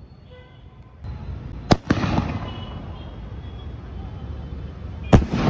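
Cock Brand Coronet 2-inch aerial firework shells going off: two sharp bangs about three and a half seconds apart, each trailing off in a rumbling echo.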